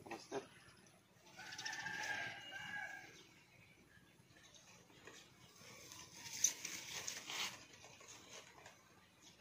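A rooster crows once, faintly, starting about a second in and lasting about a second and a half. Rustling and handling noise with a sharp click follow later.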